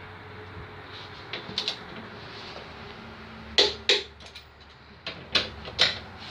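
A series of sharp knocks and clacks, as of hard parts or tools being handled and set down. There is a small pair about one and a half seconds in, a louder pair about three and a half seconds in, and three more near the end.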